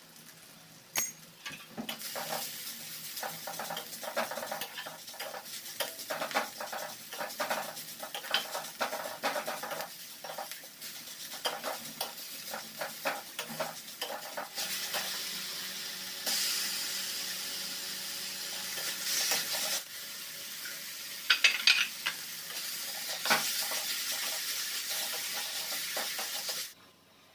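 Food sizzling as it fries in a steel wok, with a spatula scraping and clinking against the pan as it is stirred. The sizzle grows louder about halfway through and stops abruptly just before the end.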